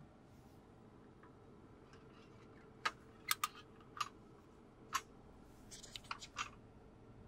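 Sharp clicks and light rattles from a plastic pet carrier's wire grille door being handled and opened: a few separate clicks from about three seconds in, then a quick cluster near the end.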